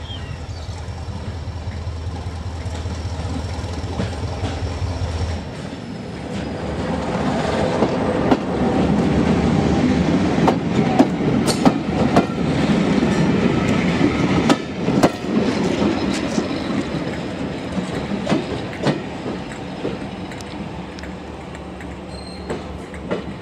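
Class 205 'Thumper' diesel-electric multiple unit, powered by an English Electric four-cylinder diesel engine. For the first five seconds its engine runs with a steady low thrum. The sound then changes abruptly to the unit rolling past close by, its wheels clicking over rail joints, loudest in the middle and fading as it moves away.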